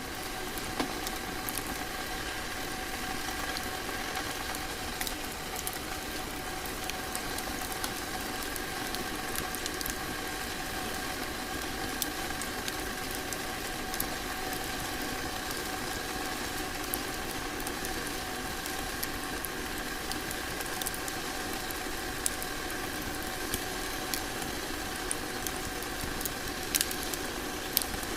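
Log fire crackling in a fireplace: a steady hiss with scattered sharp pops and snaps, over a faint steady hum.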